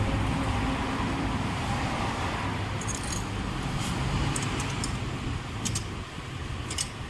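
Light metallic clinks and jingles, scattered from about three seconds in, over a steady low rumble.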